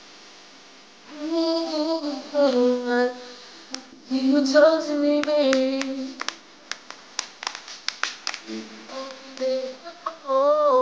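A man singing unaccompanied in a high voice, three phrases with long held notes and vibrato. Between the second and third phrase comes a string of sharp clicks.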